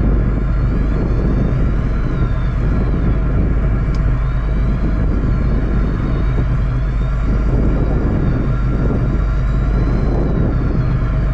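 Fishing boat's engine running steadily, a constant drone with a low rumble.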